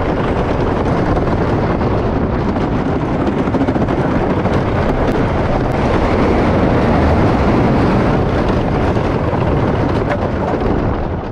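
Roller coaster train running on its track, heard from on board: a steady, loud rumble and rattle mixed with wind rushing past the microphone.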